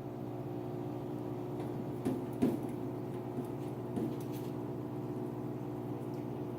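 Steady low mechanical hum, with a few soft knocks: two about two seconds in, the second the loudest, and another near four seconds.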